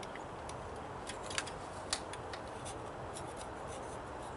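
Sharp hand scraper scraping old paper gasket off a thermostat housing mounting surface: irregular short scratchy strokes, a few a second.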